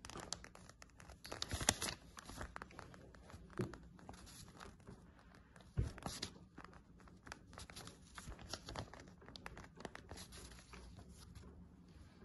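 Ballpoint pen scratching across a scrap of paper in short handwriting strokes, with light paper rustling and a couple of louder taps, one near two seconds in and one near the middle.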